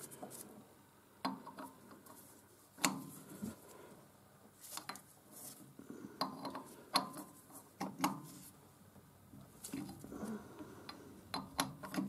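Steel chuck key clicking and knocking in the cams of a lathe's D1-4 camlock spindle as the cams are nipped up a little more each time around, fastening a 4-jaw chuck. The clicks and knocks are sharp and irregularly spaced.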